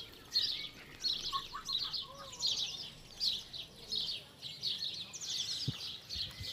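Small songbirds singing: short, high, quick trilled phrases following one another about once or twice a second.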